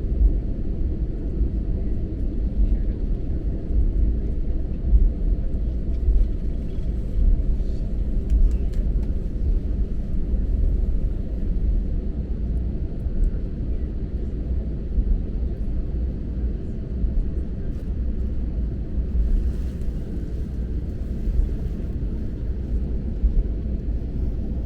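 Steady low rumble of an Airbus A321LR neo's engines and airflow heard inside the passenger cabin.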